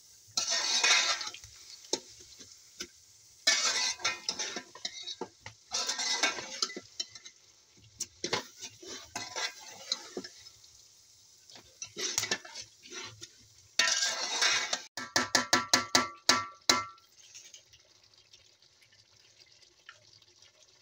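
A metal utensil scrapes and clanks in a steel cooking pot as raw chicken pieces are stirred into a thick masala with potatoes, in several separate bursts. Near the end comes a quick run of ringing metal clinks, then a faint steady sizzling hiss from the pot.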